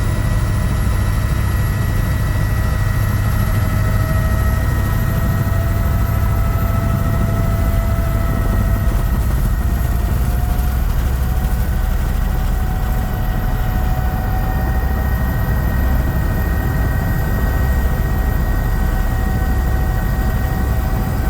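Sightseeing helicopter in steady flight: a continuous heavy low drone of engine and rotor with a few steady whining tones on top, which creep slightly higher in pitch partway through.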